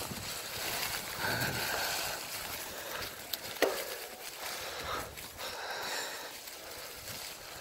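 Bicycle tyres rolling through a thick layer of dry fallen leaves, a rustling crunch that swells and fades, with one sharp click a little past halfway.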